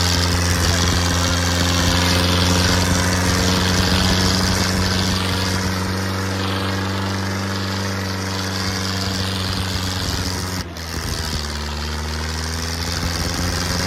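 Modified Massey Ferguson 2606 tractor's diesel engine running steadily and hard under load as it pulls through loose soil. There is a brief dip about eleven seconds in, after which the engine runs on slightly quieter.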